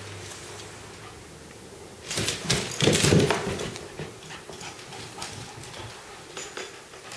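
A corgi and a Bengal cat scrambling on a hardwood floor and rugs. About two seconds in there is a loud burst of scrabbling claws and thumps lasting over a second, followed by scattered lighter claw clicks.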